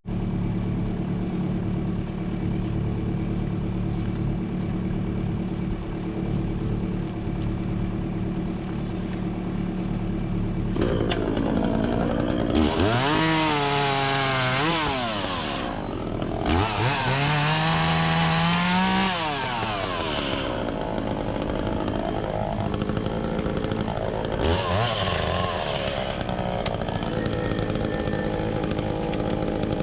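Echo CS-400 two-stroke chainsaw idling steadily, then revved up three times for limbing cuts, the engine pitch rising high and dropping back with each cut.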